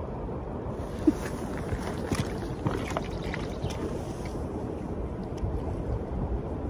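Steady rush of a shallow river running over stones, mixed with wind on the microphone. A few short knocks and ticks come about one to three seconds in.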